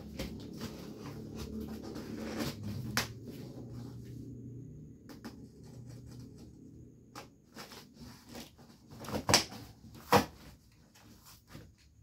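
Box cutter slicing along the packing tape of a cardboard box, with short scratching and scraping strokes and two louder, sharper cuts about nine and ten seconds in.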